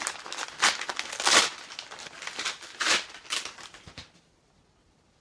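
Wrapping paper crinkling and tearing as a present is unwrapped, in a quick run of rustles and rips, the loudest about a second and a half in; it stops about a second before the end.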